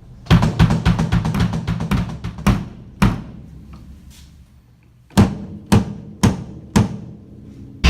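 Drum kit with DW Collectors bass drums: a quick run of rapid drum hits, a single strike left to ring out, then four evenly spaced bass drum strikes about half a second apart.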